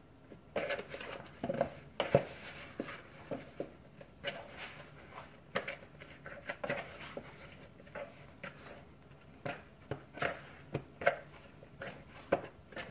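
Hands kneading and squeezing sticky dumpling dough in a mixing bowl: irregular soft squishes and rustles with scattered light knocks against the bowl.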